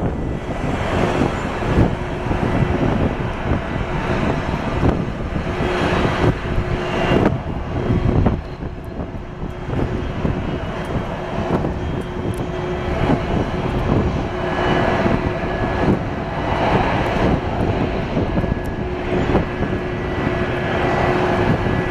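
Twin-engine widebody jet airliner at takeoff thrust: a loud, steady jet roar with a faint steady whine in it, as it rolls for takeoff and climbs out.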